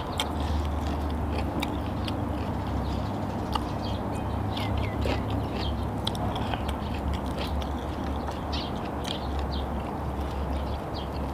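Close mouth sounds of a person chewing grilled chicken: wet smacks and clicks, with grilled chicken being pulled apart by hand, over a steady low hum.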